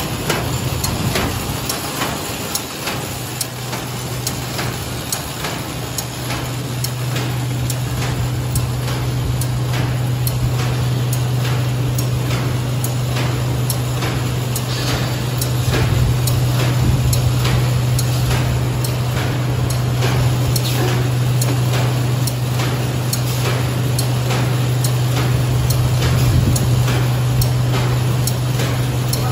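A330 paper bag making machine running in production: a steady low hum with a fast, even clicking from its cycling mechanism as it forms and delivers bags.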